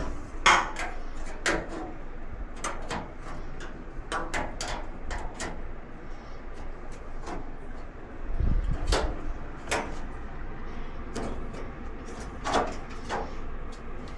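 Irregular clicks and knocks of dryer panels, parts and tools being handled during disassembly, with a heavier thump and rumble about halfway through.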